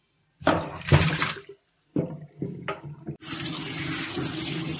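Canned sliced champignon mushrooms tipped from the tin into a plastic colander in a steel sink, a short noisy burst. From about three seconds in, a kitchen tap runs steadily onto the mushrooms in the colander, rinsing them.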